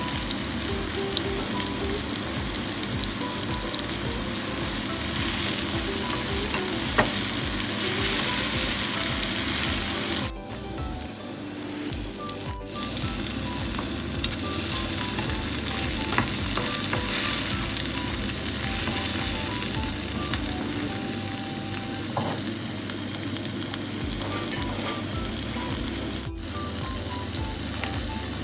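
Chopped onions, chilli peppers and tomatoes sizzling as they fry in oil in a pan, stirred now and then with a spatula. The sizzle dips for a couple of seconds about ten seconds in.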